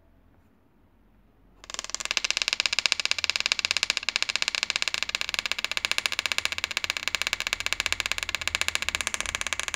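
Button (coin) vibration motor buzzing and rattling as it is driven by a 20 Hz signal from a computer's headphone jack, in fast, even pulses. It starts suddenly about a second and a half in, after near silence.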